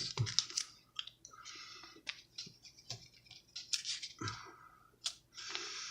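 Plastic MRE packets being handled and turned over: scattered light crinkles, taps and scrapes of the packaging.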